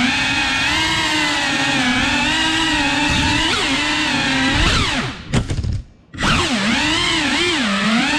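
FPV quadcopter's motors and propellers whining, the pitch wavering up and down with the throttle. About five seconds in the pitch falls steeply and a few knocks sound. The motors nearly stop for about half a second, then spin back up.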